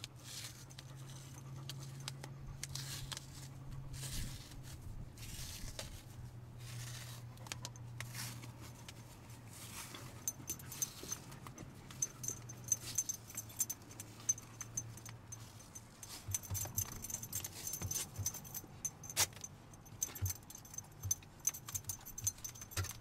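Paper tape being handled and wrapped around a foam post by hand: rustling, crinkling and quick small clicks, busier in the second half, over a low steady hum.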